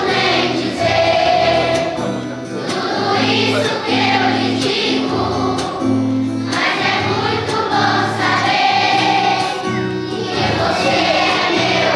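A large group of children singing a song together over a recorded backing track with a steady, stepping bass line played through loudspeakers.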